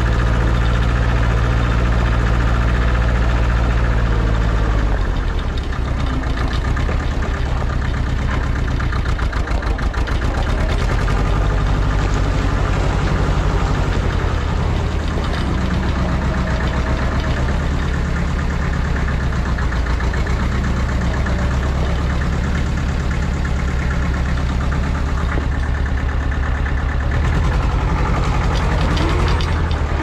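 Allis-Chalmers 5020 compact tractor's engine running steadily while it carries a round bale on the front-loader bale spear. The engine note drops a little about five seconds in and then holds.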